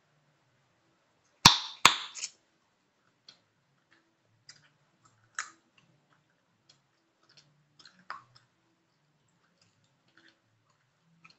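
Chewing gum snapping and cracking in the mouth: two loud sharp cracks about a second and a half in, then scattered quieter clicks and snaps.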